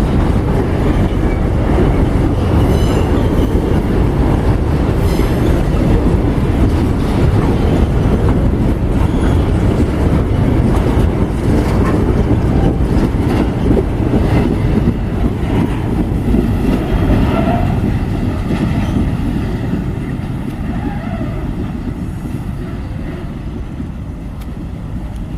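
Freight train rolling past, a steady rumble of wheels on the rails that gradually fades over the last several seconds.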